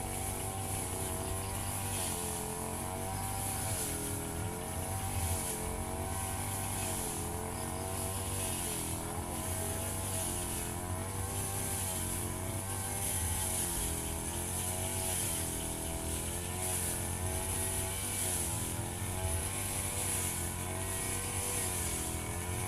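Firman FGB 528 two-stroke brush cutter running at high speed while cutting grass. The engine's pitch dips and recovers every second or two as the blade takes load.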